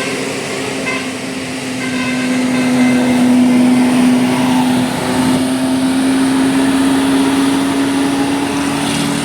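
A large bus on the road sounding one steady, loud droning note that creeps slowly up in pitch. It swells to its loudest about three to four seconds in.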